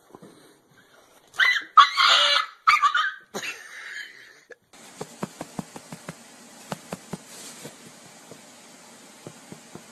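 Dog barking and snarling in a few loud, harsh bursts during a scuffle with a cat, cut off abruptly about halfway through. A steady faint hiss with scattered light clicks follows.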